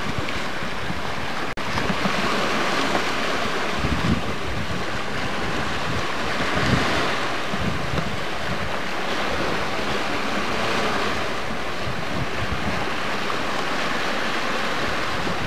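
Wind rushing steadily over the camcorder microphone above open water, with irregular low buffets of wind on the mic. The sound drops out for an instant about one and a half seconds in.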